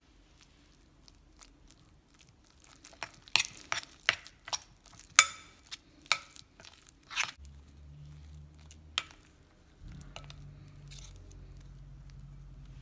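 Spoon stirring soft creamed butter in a glass bowl, knocking and clinking against the glass in a quick run of sharp clicks through the middle, with squishy scraping between them.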